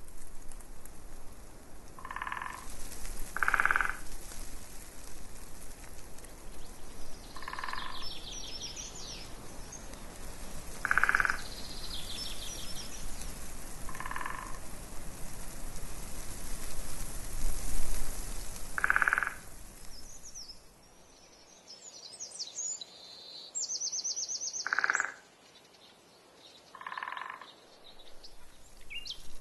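A frog croaking every few seconds, each croak short, with small birds trilling over it. Wind rushes on the microphone for the first two-thirds, with one stronger gust.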